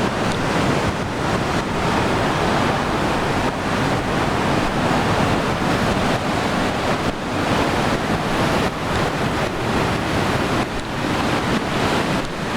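Sea waves washing in a continuous, dense rush, with wind rumbling on the microphone.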